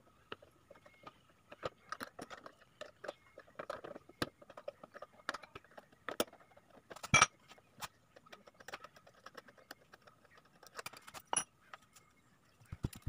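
Small metal clinks and taps of hand tools and screws as a motorcycle's rear number plate is fitted. Two louder metal clanks ring out, about seven seconds in and again about eleven seconds in.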